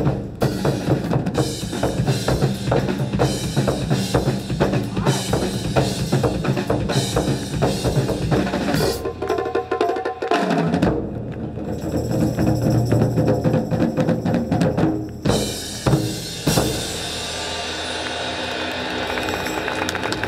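Japanese taiko drum ensemble playing a fast, dense rhythm of strikes. The drumming ends about sixteen seconds in and a steady noise follows.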